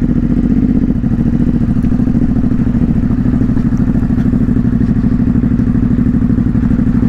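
2022 Ducati Hypermotard 950 SP's 937 cc Testastretta L-twin engine running steadily under light throttle as the bike rides along.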